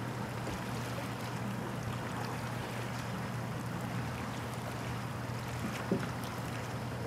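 Steady outdoor shoreline ambience of a light breeze and lapping water, with a low steady hum underneath and one soft knock about six seconds in.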